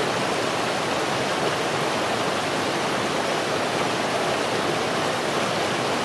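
Fast mountain stream tumbling over boulders: a steady, even rush of water.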